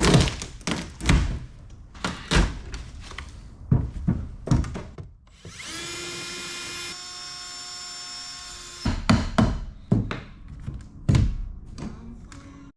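Repeated knocks and thunks of tools working on a boat's rotted wooden floor during its tear-out. In the middle a power tool runs with a steady whine for about three seconds, then the knocking resumes.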